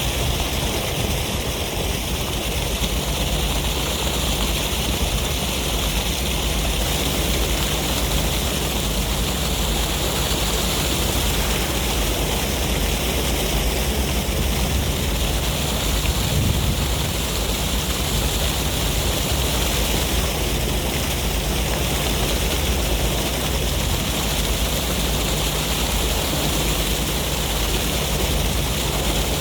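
Ocean surf and sea breeze making a steady, even rush of noise, with no distinct wave breaks standing out.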